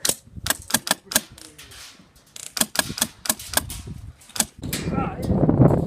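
Airsoft guns firing: sharp clicking shots in quick irregular strings, then a louder noisy rumble from about four and a half seconds in.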